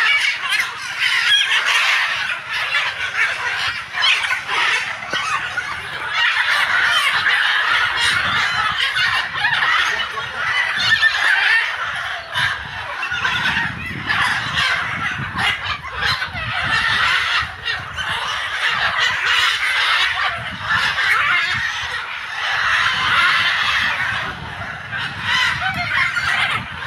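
Macaws squawking harshly, call after call overlapping almost without a break.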